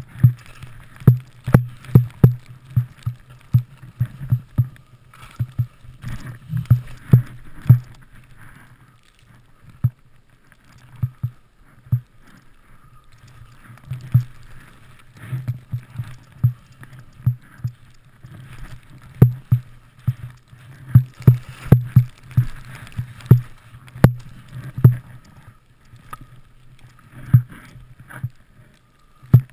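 Skiing through deep powder heard from a camera worn by the skier: irregular dull thumps and knocks, several a second in places, as the skis and poles hit the snow and the camera jolts, over a soft rush of snow and air. The thumps come in clusters with quieter stretches between.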